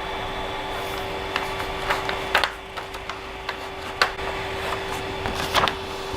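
Creality CR-10S Pro 3D printer switched on and idling: a steady fan hum with a constant tone, broken by a few light clicks and knocks from handling the machine during bed levelling.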